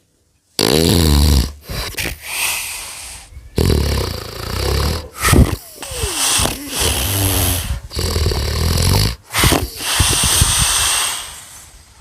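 Loud snoring: a run of long, noisy breaths about a second each with short gaps between, starting abruptly after a brief silence.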